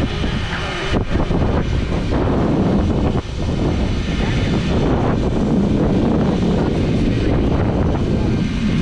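Loud, steady jet noise from Blue Angels F/A-18 Super Hornets.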